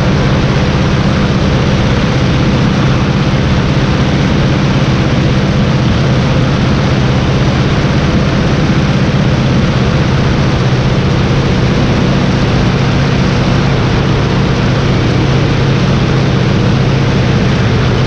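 Stearman biplane's radial engine running steadily in level flight, heard from a wing-mounted camera together with a constant rush of wind noise.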